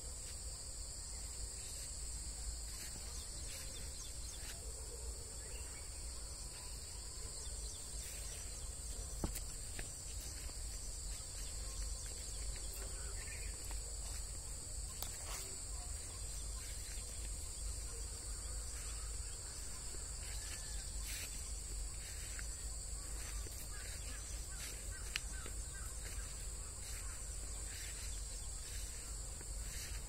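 Steady chorus of insects, a continuous high trill held at two pitches, over a low rumble.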